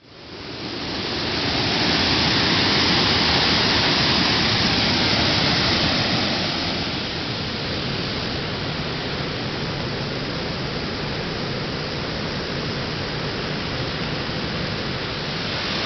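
Steady rushing of water over rocks, a continuous even noise that fades in over the first second or two and becomes a little quieter about halfway through.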